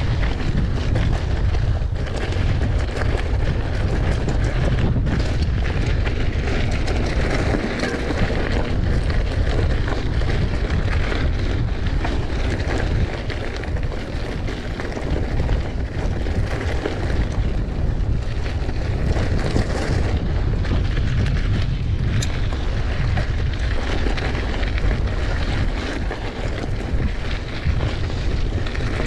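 Wind buffeting an action camera's microphone over the rush of mountain-bike tyres rolling on a dirt singletrack, a steady low rumble with small clicks and knocks from the bike.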